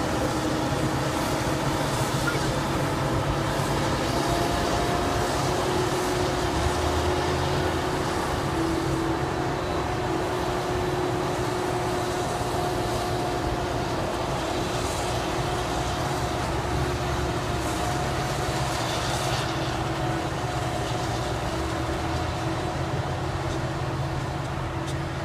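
Claas Jaguar 950 self-propelled forage harvester running as it chops maize: a steady machine drone with a held whine. A tractor pulling a silage trailer runs alongside it.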